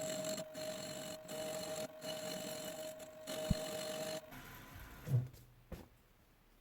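A metalworking machine tool running with a steady whine, broken by brief gaps, then winding down about four seconds in, followed by a low thump and a click.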